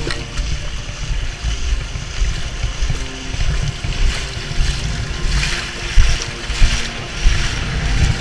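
Wading through knee-deep floodwater: water sloshing and splashing with each stride. Under it runs a heavy low rumble of wind buffeting the microphone.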